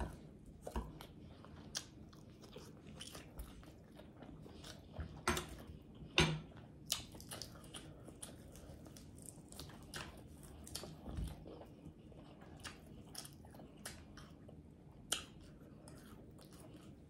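Close-up eating sounds: a person biting and chewing a fried pork chop, with scattered short crunches and wet mouth smacks. The clicks are irregular, a few of them louder.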